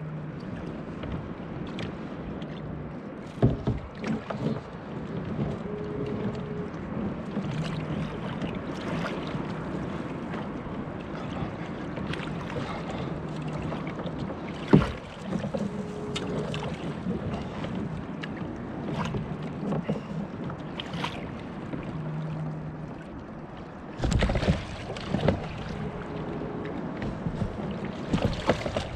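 Wind on the microphone and water moving around a fishing kayak's hull, with a few sharp knocks of gear against the boat, the loudest about three and a half and fifteen seconds in, and a burst of louder handling noise near the end.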